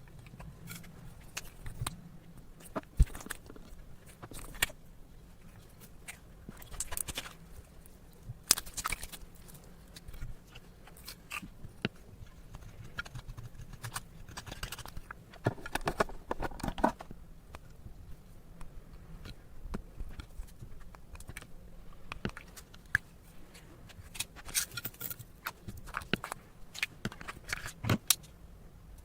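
Slime being mixed and squished by hand: irregular sticky clicks, crackles and squelches, with a denser run about halfway through.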